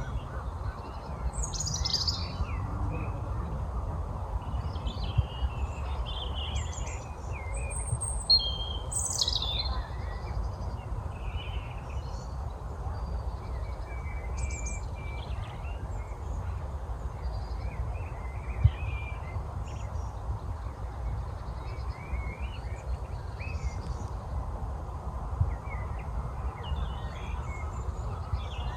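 Several woodland songbirds chirping and singing in short phrases, busiest in the first few seconds, over a steady low rumble. A few faint clicks are heard, the sharpest about two-thirds of the way through.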